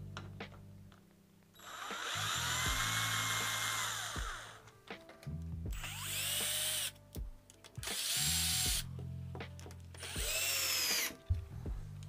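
Cordless drill driving screws with a socket bit in four runs, the first about three seconds long and the other three about a second each; the motor's whine rises in pitch as it starts and falls as it stops.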